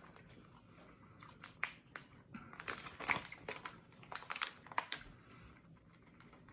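Faint crinkling of a plastic candy packet and small clicks as people take and chew sour gummies.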